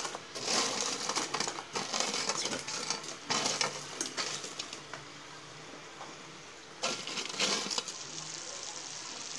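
Fried, crisp bread pieces tipped and pushed by hand off a paper-lined steel plate into sugar syrup boiling in a pan: crunching, rustling scrapes come in several bursts over the steady hiss and bubbling of the syrup.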